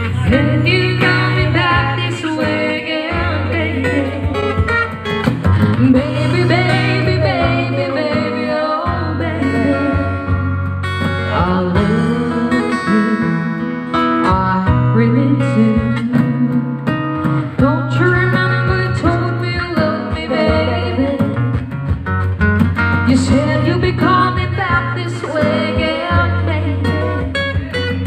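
A woman singing into a microphone over instrumental backing, with a steady bass line underneath.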